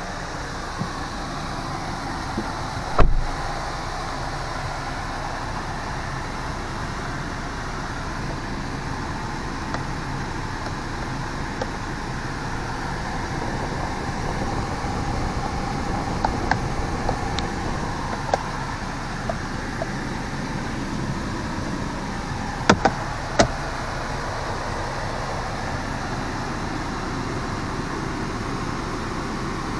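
Steady background noise with a sharp knock about three seconds in and a few light clicks later on, including two close together, from hands handling the car's interior trim and console compartment.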